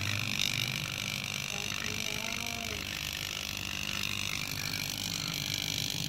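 Steady low electrical hum with hiss from an air-conditioner rotary compressor being run as a vacuum pump on a refrigerator's sealed system, near the end of the evacuation. The hum drops a little just after the start.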